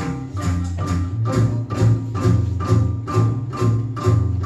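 Music played from a record on a McIntosh MTI100 turntable through B&W 804 loudspeakers: sharp percussive strikes about three a second over a steady deep bass line, heard in the listening room.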